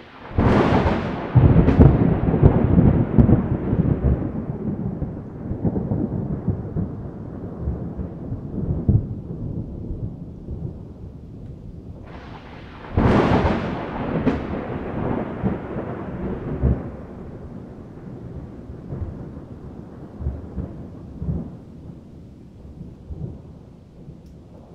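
Thunder: a sharp crack right at the start that rolls into a long rumble, fading over about ten seconds, then a second crack about thirteen seconds in that rumbles away and fades out.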